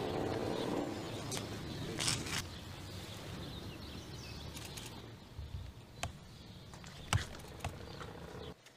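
Faint outdoor ambience of a crowd standing quietly, with low rustling and a few sharp clicks scattered through. It drops away suddenly near the end.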